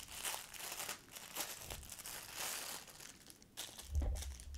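Clear plastic packaging bag crinkling and rustling in irregular bursts as it is opened and handled, with a low thud about four seconds in.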